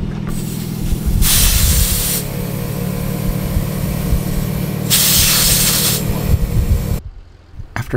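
Portable air compressor running with a steady hum while inflating an off-road tire through a hose on the valve stem, the tire being topped up for a slow leak. Air hisses loudly at the valve twice, about a second in and again about five seconds in. The sound cuts off suddenly near the end.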